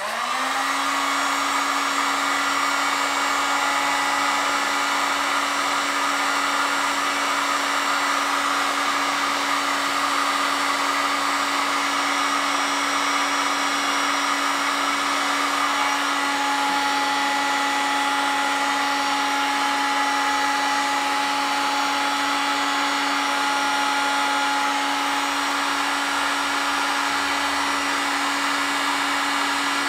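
Heat gun switched on, its fan motor spinning up and then running steadily with a constant blowing hum.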